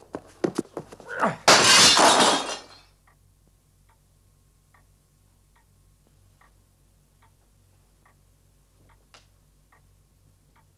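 Glass smashing: a few sharp clinks, then one loud crash of breaking glass about a second and a half in, lasting about a second. Faint light ticks follow, evenly spaced a little under a second apart.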